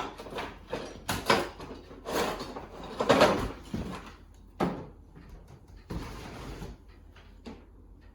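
Wooden window parts being worked loose: a run of irregular knocks, creaks and scrapes of wood against wood, loudest about three seconds in and tailing off near the end.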